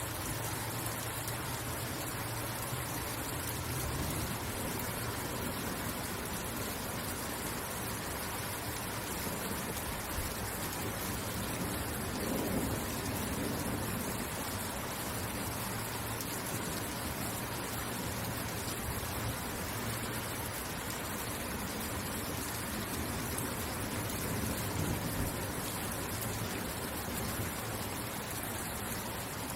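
Steady rain falling: an even, dense hiss with a low rumble underneath, swelling slightly about twelve seconds in.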